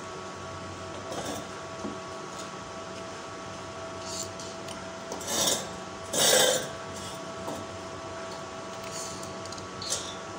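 Steel-strip hexagonal paving-block mold and welding tools handled on a workbench: a few scattered clanks and scrapes of metal, the loudest about six seconds in, over a steady hum.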